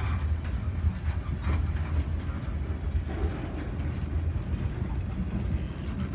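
Freight train of a railroad yard job rolling past: a steady low rumble with scattered clanks and clicks, and a brief high-pitched squeal about three and a half seconds in.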